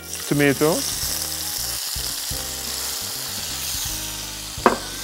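Diced tomatoes poured into hot vegetable oil with sliced olives in a frying pan, sizzling steadily as they fry.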